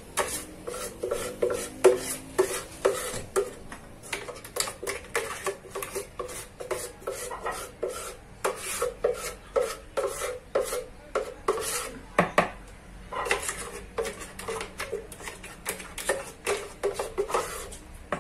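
Spoon scraping and tapping against a blender jug and mixing bowl while cake batter is scraped out of the jug: an irregular run of short clicks and scrapes, a few a second.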